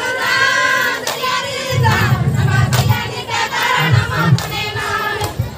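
A group of women singing a kummi folk song in chorus, with sharp hand claps now and then and the murmur of a crowd.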